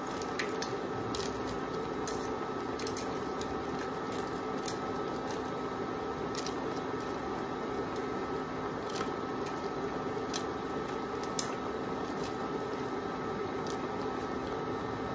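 Crabs and vegetables cooking in a nonstick wok on an induction cooktop: a steady hum with a few faint high tones, and irregular crackles and pops from the pan, one sharper pop about eleven seconds in.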